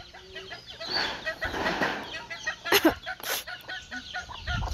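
Chickens clucking around a farmyard, with a short rustling noise about a second in and two brief sharp sounds near the three-second mark.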